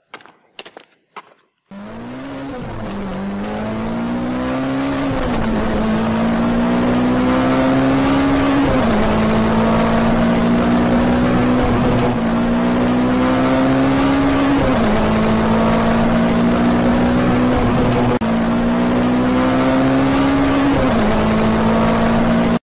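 A few short clicks, then a car engine that fades in and runs through the gears. Its pitch climbs slowly and drops sharply at each shift, about every three seconds. It cuts off suddenly near the end.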